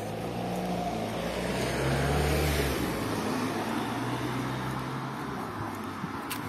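A car driving past on the street, its sound swelling to a peak about two seconds in and then fading away. A single sharp click comes near the end.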